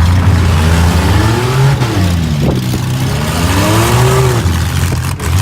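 Minivan engines revving up and down hard, their pitch rising and falling again and again, in a demolition derby heat.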